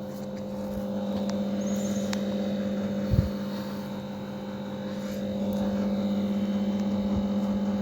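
A steady low mechanical hum, like a fan or appliance motor, with one short knock about three seconds in.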